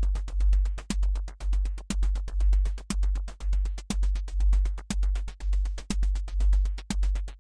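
Electronic drum-machine and synthesizer music: a deep bass pulse swelling about once a second under rapid, evenly spaced clicking ticks.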